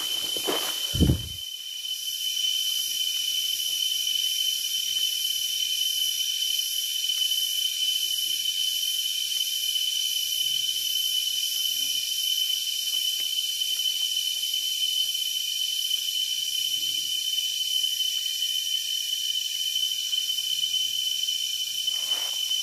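Steady, high-pitched drone of a tropical rainforest insect chorus, with one thump about a second in.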